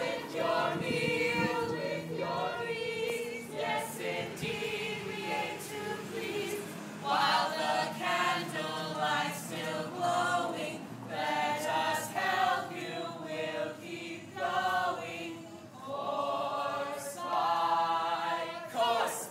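A group of voices singing together in chorus, without clearly sung words.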